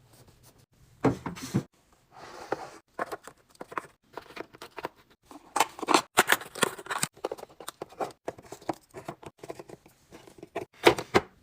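Groceries and containers being handled and set down while restocking a fridge: irregular clicks and knocks of plastic and glass, with rustling of packaging, the sharpest knocks about a second in and near the end.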